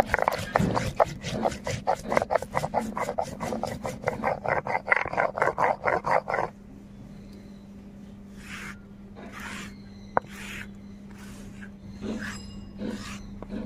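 Mustard seeds ground wet on a sil-nora grinding stone: the stone hand-roller rubbed rapidly back and forth over the stone slab in rasping strokes, about five a second, stopping about six and a half seconds in. A few slower, separate scrapes follow as the paste is gathered up with a small wooden stick.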